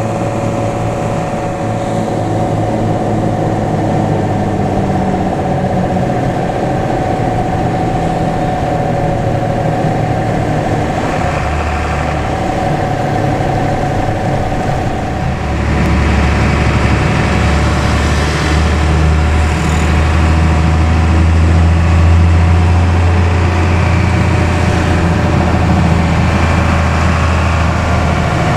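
An intercity bus's diesel engine heard from inside the bus. It runs steadily with a faint steady tone over it in the first half. From about halfway through, a deep low drone builds and holds as the engine pulls harder.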